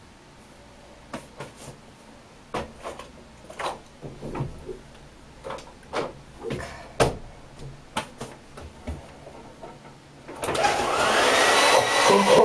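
Scattered clicks and knocks of handling, then a hair dryer switched on about ten seconds in: a loud rush of air with a motor whine that rises as it spins up.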